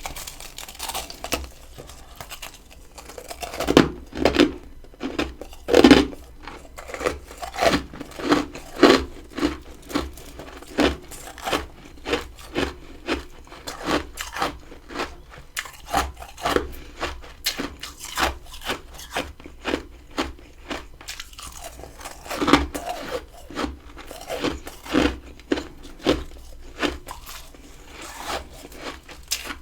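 A person biting into and chewing freezer frost close to the microphone: a steady run of crisp crunches, one or two a second, with louder bites every few seconds.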